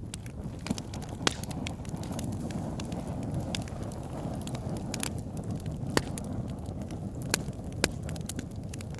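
Wood campfire burning with a steady low rumble of flames and irregular sharp crackles and pops; a few louder pops stand out about a second in and in the second half.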